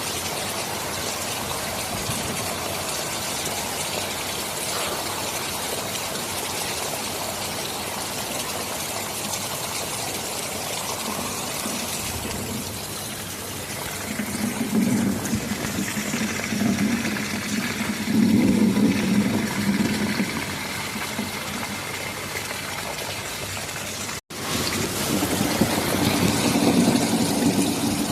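Steady heavy rain hissing, joined about halfway through by low rolling thunder rumbling in uneven waves. The sound cuts out for an instant near the end, then the rain and rumbling resume.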